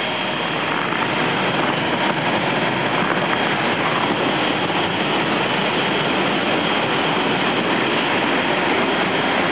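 Steady rushing noise of an inflatable bounce-house blower fan running.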